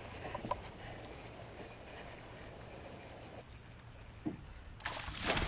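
Fishing reel being cranked, a steady fine mechanical whir and ticking as a bass is reeled in, easing off after about three and a half seconds; a single click follows, and a louder rush of noise comes near the end.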